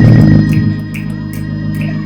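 Organ holding a loud, low sustained chord, easing off slightly after about half a second, with faint high clicks over it.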